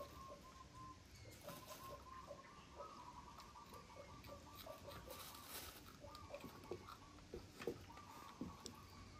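Faint small clicks and crunches of snow pea pods being snapped, trimmed and nibbled, over a faint steady high tone.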